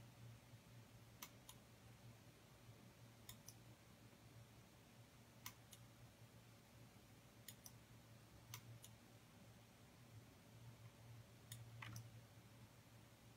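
Near silence: room tone with a low steady hum and faint sharp clicks, mostly in pairs, every second or two.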